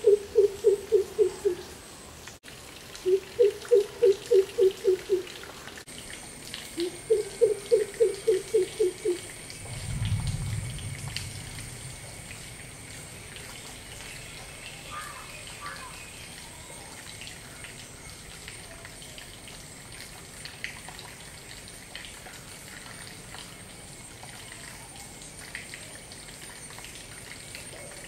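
Greater coucal giving its deep booming coop-coop-coop call: three runs of about eight to ten quick low hoots in the first nine seconds, each run rising a little at its start. A brief low rumble follows about ten seconds in, then only a faint steady high whine.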